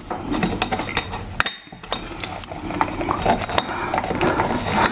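Repeated light clicking and clinking from cables and small clips being handled against the metal arms of an articulating TV wall mount, with a brief pause about a second and a half in.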